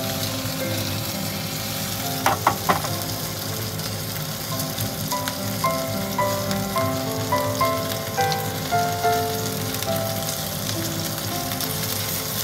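Mirin-marinated silver flounder (ginkarei) fillets sizzling in a nonstick frying pan, with three sharp taps of the spatula on the pan a little over two seconds in. Background music plays underneath.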